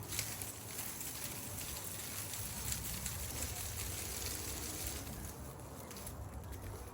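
Rustling and crackling of dead, frost-killed garden plants being handled and pulled, with many short crackles over a steady low rumble.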